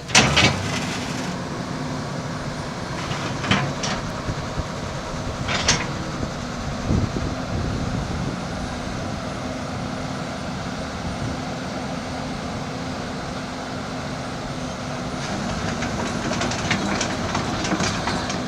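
Cat 315BL hydraulic excavator with its diesel engine running steadily under hydraulic load, with sharp metallic clanks of the machine's steel parts. The loudest clank comes right at the start, a few more follow in the first seven seconds, and a run of rattling clicks comes near the end.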